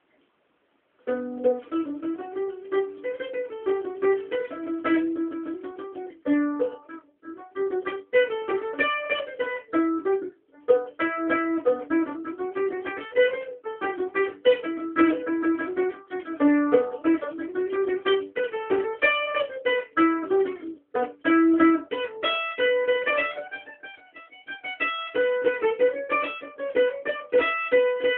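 Solo mandolin played with the thumb, picking a quick melody. It starts about a second in and breaks off briefly a few times.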